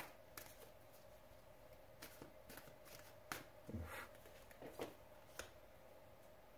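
Tarot cards being shuffled by hand: faint, irregular soft riffles and taps, over a low steady hum.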